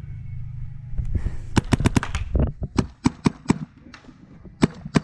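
Paintball markers firing: a fast string of about five shots, then four shots about a quarter second apart, then three more near the end, over a low steady rumble that fades out partway through.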